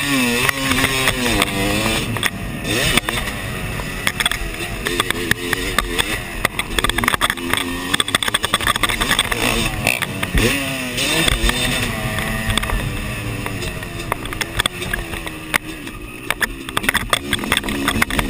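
Yamaha motocross bike engine revving up and down as it is ridden round the track, its pitch rising and falling again and again through throttle changes and shifts, with wind rushing on the microphone.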